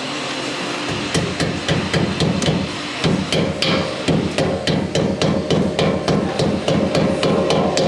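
Hammering: a fast, even run of sharp knocks, about four a second, starting about a second in, with ringing tones underneath.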